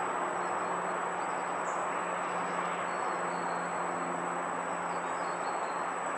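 Steady rumble of distant traffic with a low hum under it, and a few faint bird chirps about halfway through.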